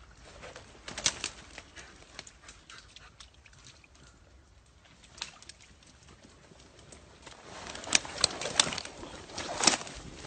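Footsteps through brush and leaf litter, with twigs snapping and branches scraping past. The steps grow quicker and louder over the last few seconds.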